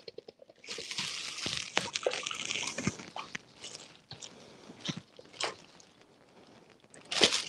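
Liquid marinade sloshing and pouring from a stainless steel mixing bowl into a plastic garbage bag, with the plastic crinkling and a few light clinks and knocks; a denser rush of liquid in the first couple of seconds, then scattered drips and rustles.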